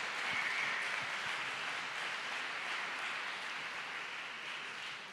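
Audience applauding, a steady patter of many hands that fades away near the end.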